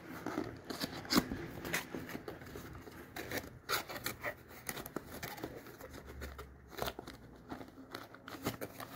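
A small cardboard box being opened by hand: its flaps pulled open and the card rubbed and handled, giving irregular scrapes, rustles and light taps.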